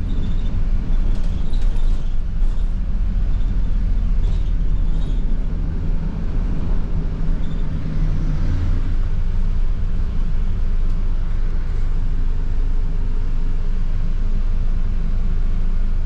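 London bus engine running with a steady low rumble, heard from on board, with light rattles in the first few seconds and a brief swell about halfway through.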